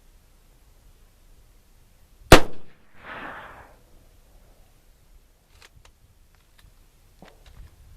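A single AR-15 rifle shot (5.56/.223) about two seconds in, sharp and very loud, followed about a second later by a softer rushing noise that fades out.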